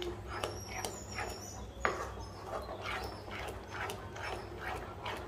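Wooden spatula stirring a thick, wet mash of banana and jaggery in a nonstick kadai: repeated squelching scrapes, about two strokes a second. A sharper knock comes about two seconds in as the spatula hits the pan.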